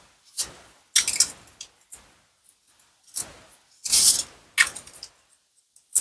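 Plastic and wooden toy fruits and vegetables being cut apart with a toy knife: a series of short, crisp crackling clacks, about six separate cuts with brief pauses between.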